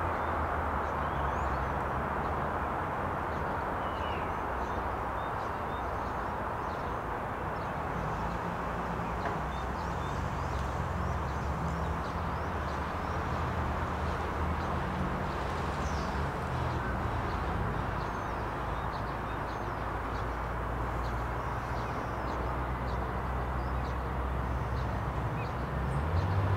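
Steady outdoor ambience: a low rumble of distant traffic, with faint, scattered bird chirps.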